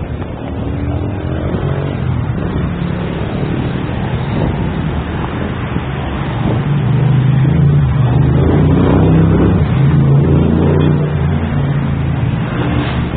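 A motor vehicle engine running with a low hum, growing louder about halfway through and easing off near the end.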